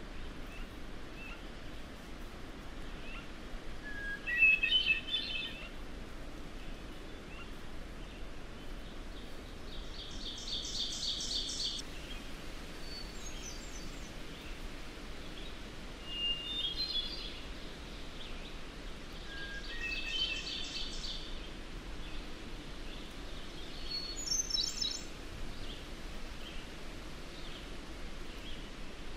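Wild birds singing in a forest soundscape recording: short chirpy song phrases several seconds apart, and two longer rapid trills about ten and twenty seconds in, over a steady low background hiss.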